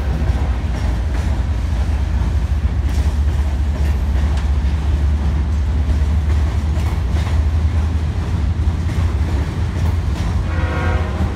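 Freight train cars rolling across a steel railroad drawbridge: a steady, deep rumble with scattered wheel clicks. A horn blast begins just before the end.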